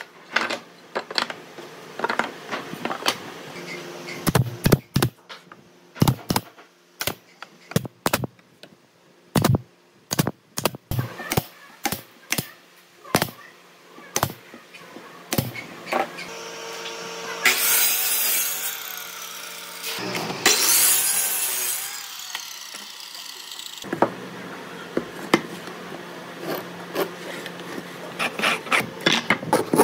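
Tools working a wooden drawer box: a long run of sharp, separate knocks from a hammer tapping the wooden bottom panel into place and from nail-gun shots. About halfway through, a loud power tool runs for a few seconds, stops briefly, then runs again for a few seconds. Knocks resume near the end.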